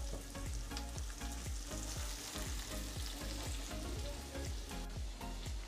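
Chopped red onion, garlic and a green chilli sizzling softly in olive oil in a stainless steel frying pan over medium heat, stirred with a silicone spatula at first. The onion is being softened slowly (pochado).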